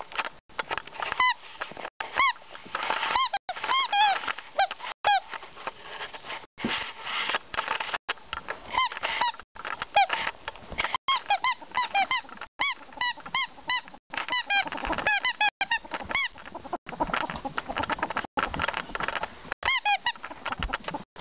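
Excited ferret dooking: short chirpy clucks in quick runs, over rustling and scuffling from its play.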